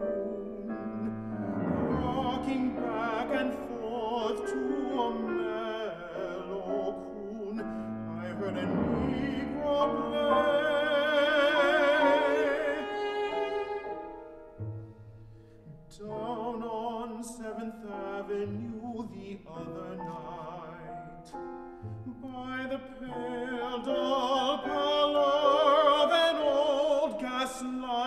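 Cello and piano playing a slow classical passage: a singing cello melody with wide vibrato over sustained piano chords, swelling twice and easing off in between.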